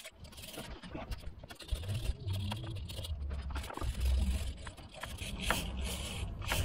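Small brush scrubbing crud off the exposed front of an A/C compressor where its clutch was removed, an irregular dry scraping and rubbing.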